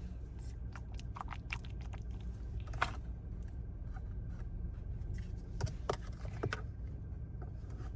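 Blind-box toy packaging being handled and opened by hand: scattered small clicks and crinkles over a steady low hum.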